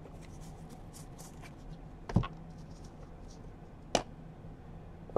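Faint rustle of trading cards being handled, with two light knocks, a sharper one about two seconds in and a smaller one about four seconds in.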